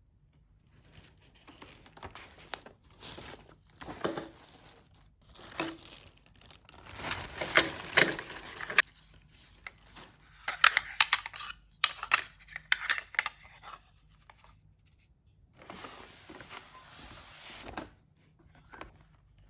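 Packaging being crinkled and torn open by hand in irregular rustling bursts, with sharp crackles; it pauses briefly in the middle and resumes.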